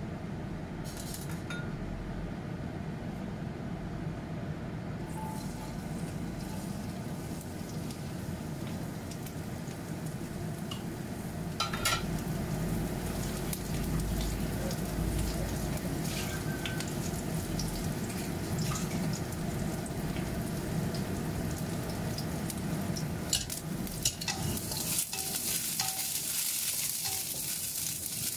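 A gas burner runs with a steady low roar under a nonstick wok of hot oil, and the oil starts to hiss. About twelve seconds in, sliced onion goes into the oil and sizzles. Near the end a spatula clicks against the wok as the onion is stirred, and the sizzle grows louder.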